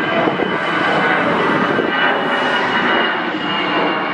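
Airbus A320's twin jet engines passing low overhead: a loud, steady roar with a high whine on top, easing slightly near the end.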